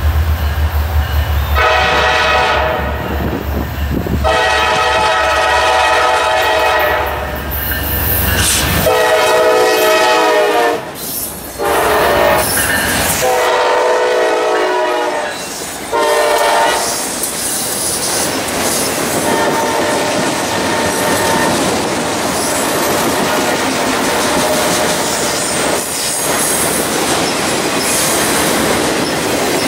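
Diesel freight locomotive sounding its multi-chime air horn in four blasts over a deep engine rumble, followed by a long string of freight cars rolling past with a steady wheel clatter on the rails.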